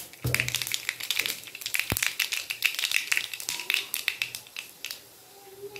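Mustard seeds spluttering and popping in hot coconut oil: a dense crackle of pops that starts suddenly just after the seeds go in and thins out near the end. It is the tempering stage, with the seeds bursting in the oil.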